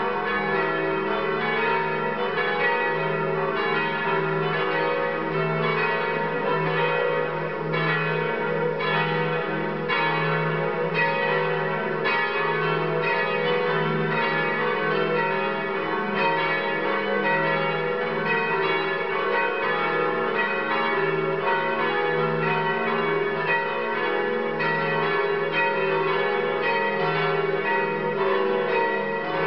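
Several cathedral bells ringing together in a continuous peal, their strikes overlapping and the tones ringing on between them at a steady loudness.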